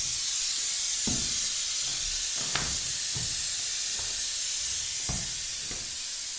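Steady hiss of compressed air from the powder coating gun's air line, with a few soft knocks as the gun is handled.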